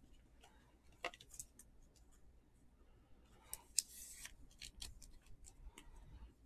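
Baseball trading cards being handled: faint scattered clicks and ticks, with a brief rustle about four seconds in.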